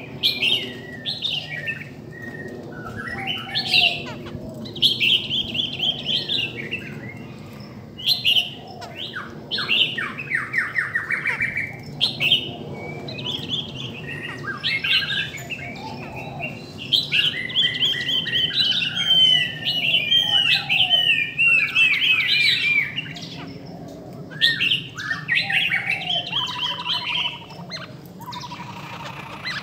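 Caged laughingthrushes (khướu) singing back and forth in a long run of varied whistled phrases, rapid chattering trills and swooping notes with brief pauses, busiest in the middle, with a buzzy note near the end.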